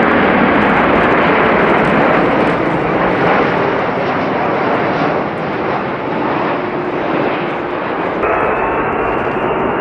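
Wide-body jet airliner on landing, its engines making a loud, steady rushing noise. A little after eight seconds a thin steady whine comes in over the noise.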